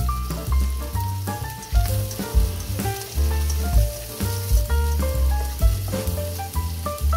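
Chopped green onion and garlic sizzling in oil in a wok on low heat while being stirred, heard under background music: a melody of short stepping notes over a steady bass line.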